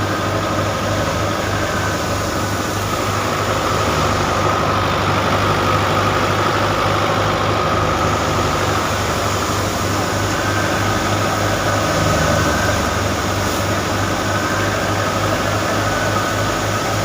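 A harvest machine's engine running steadily at a constant speed, with an even low throb and a steady whine over it.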